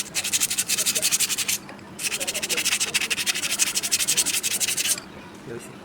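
Quick back-and-forth sanding strokes, about ten a second, in two bouts: one lasting about a second and a half, then, after a short pause, another of about three seconds.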